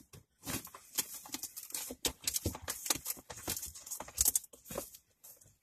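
Irregular rustling and crinkling of unboxing packaging being handled as an 8x10 photo is worked loose.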